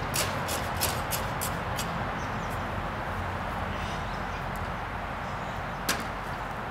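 Short brushing strokes of a hand brush sweeping debris into a dustpan, about three a second for the first two seconds, with one more stroke near the end, over a steady outdoor background hiss.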